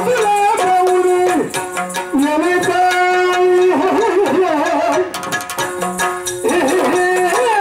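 Yakshagana ensemble music: a steady drone under a melody that slides and bends in pitch, driven by chende and maddale drum strokes, with a quick run of strokes about five seconds in.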